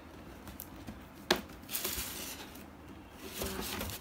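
Hands handling toy figures and their packaging: soft rustling in two short stretches, with one sharp tap about a second in.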